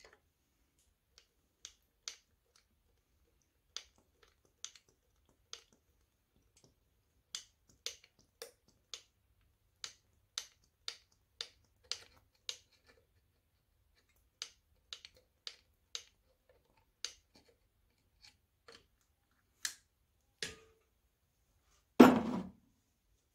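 Sharp, irregular clicks, about one or two a second, as a copper oil can fills the glass drip oiler of an old hit-and-miss engine, then one loud knock near the end.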